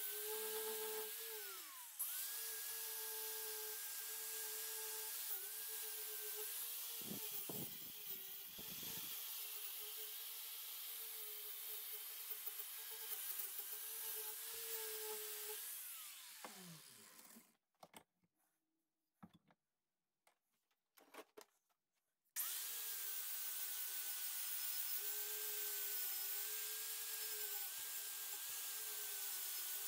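Angle grinder with a wire wheel running against a rusty axe head: a steady motor whine over a high scratchy hiss. It dips and picks up again about two seconds in. Around sixteen seconds it winds down with a falling whine, stops for several seconds, then starts abruptly and runs on.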